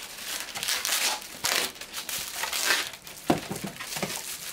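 Plastic bag crinkling and rustling, with polystyrene foam packing being handled, as a heavy spindle motor is lifted out of its wrapping. A sharp knock about three seconds in.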